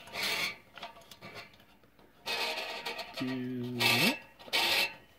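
Short scraping, rubbing bursts from hands working the duplexer's tuning knobs during alignment, four or so in a row. About three seconds in comes a brief low hum that slides upward at its end.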